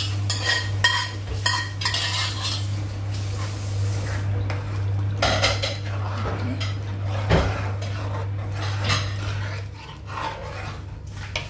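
Metal spoon clanking and scraping against a steel cooking pot while stirring a tomato stew, in irregular knocks over a steady low hum.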